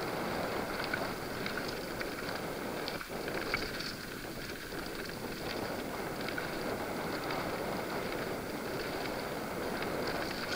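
Mountain bike riding down dusty dirt singletrack: steady noise of knobby tyres rolling over dirt and rocks, mixed with wind on the microphone, and scattered small rattles and clicks from the bike.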